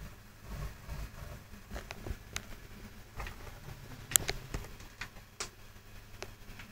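Scattered light taps and clicks from a phone and smartwatch being handled and tapped, the sharpest about four seconds in, over a faint low hum.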